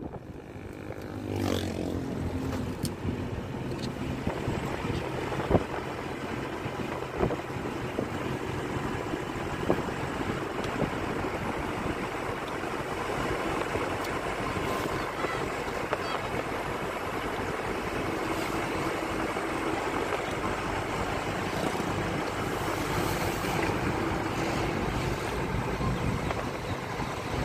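Steady road and engine noise of a moving car heard from inside the cabin, with a few brief knocks.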